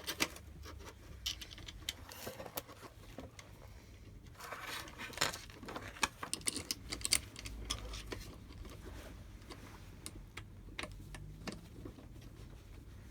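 Irregular small clicks, taps and light rattles of metal and plastic parts being handled and fitted during assembly of an Ender 3 V2 3D printer, with a brief rustle about five seconds in.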